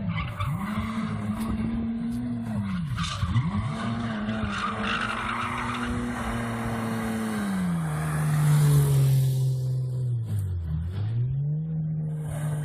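BMW 3 Series engine held high while the car slides through a turn with the tyres squealing. The revs dip briefly and climb back a few times. The engine note steps down and is loudest about two-thirds of the way in as the car comes close, then dips sharply once more and climbs again near the end.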